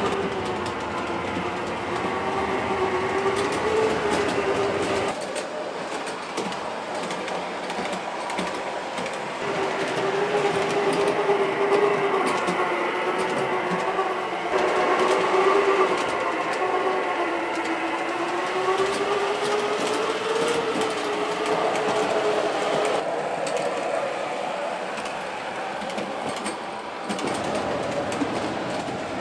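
O scale model CTA rapid transit train running on an elevated track: a steady electric motor whine that wavers slightly in pitch, over the running noise of wheels on the rails. The sound changes abruptly several times.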